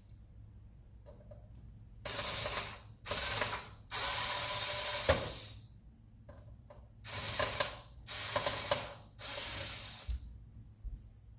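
Ratcheting screwdriver clicking as it backs out the small screws of the Xbox One S module, in six separate runs, the longest about two seconds.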